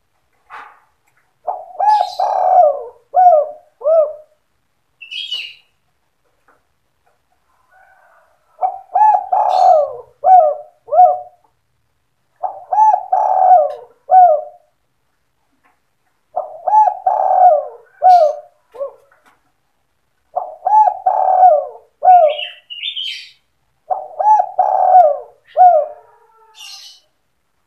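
Spotted dove (tekukur) cooing in repeated phrases of several coos, one phrase every few seconds, in the 'sandung kuk 2' song style used as a lure call. Faint higher chirps from other small birds come between the phrases.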